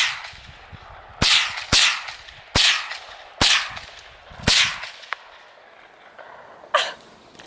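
Scoped rifle fired five times in quick succession, starting about a second in, each shot a sharp crack that trails off briefly.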